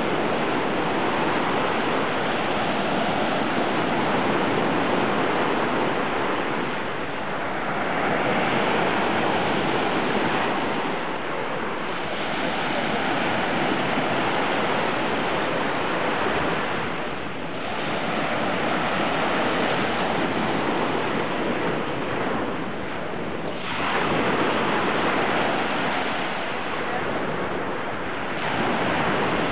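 Small Black Sea waves breaking and washing up on a sandy beach, the surf swelling and easing every five or six seconds.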